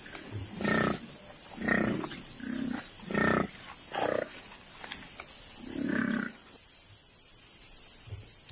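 Large wild animals grunting repeatedly, about eight short low grunts spaced under a second apart with a pause near the end, over a high, pulsing trill.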